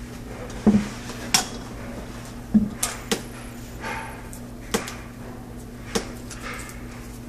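Utility knife working along the plastic sheathing of Romex electrical cable, slitting it open: a string of about seven sharp, irregular clicks and scrapes as the blade catches and the cable is handled.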